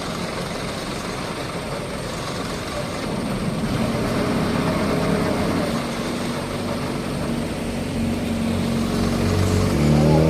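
A vehicle engine running amid a broad outdoor rumble, its steady hum growing clearer and louder over the second half.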